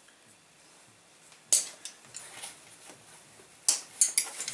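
Clicks and light rattles of a metal-framed buck saw and its strap fittings being handled as it is taken off a backpack: one sharp click about a second and a half in, then a quick cluster of clicks near the end.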